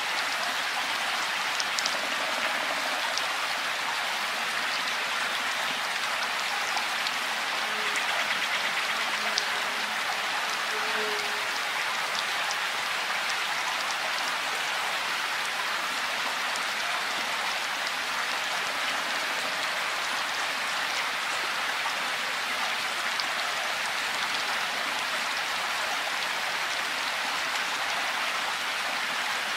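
Steady rain falling: an even hiss with scattered sharp drop hits.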